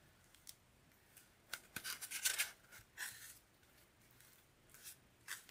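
Spackle being scraped and smoothed over a foam cake form: a few short, faint scraping strokes.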